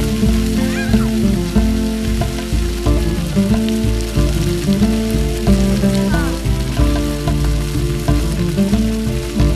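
Water jets of a floor fountain hissing and splashing steadily, with background music underneath.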